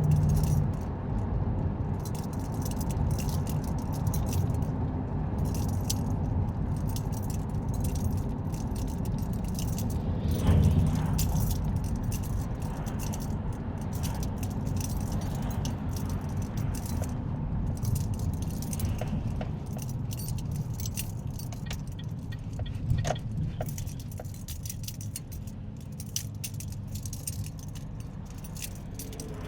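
Steady low road and engine rumble of a car on the move, heard inside the cabin, with many small clicks and rattles throughout and one louder bump about ten seconds in.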